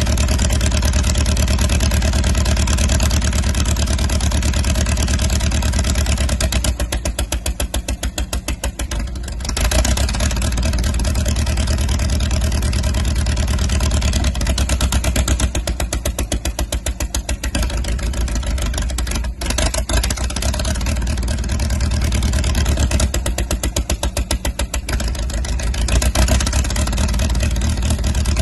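International Harvester TD-9 crawler dozer's engine running while the machine stands still. Three times its speed drops to a slower, pulsing beat for two or three seconds, then picks back up.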